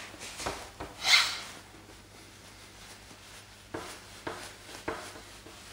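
Cloth rubbing across a whiteboard as it is wiped clean. There are rubbing swishes, the loudest about a second in, and a few short soft knocks later on.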